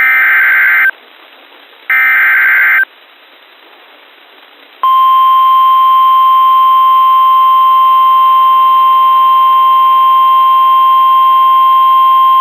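Emergency Alert System SAME header: two harsh, rasping one-second data bursts a second apart over radio hiss. About five seconds in, the NOAA Weather Radio 1050 Hz warning alarm starts, a single steady tone that signals a warning-level alert, here a severe thunderstorm warning.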